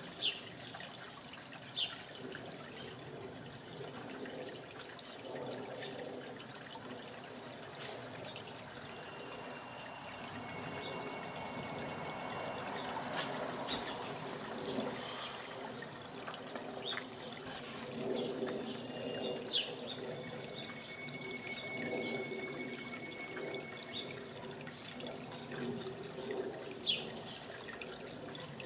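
Steady outdoor background noise with a low hum, and a few short, sharp bird chirps scattered through it. In the middle come two long, steady high tones, each lasting a few seconds.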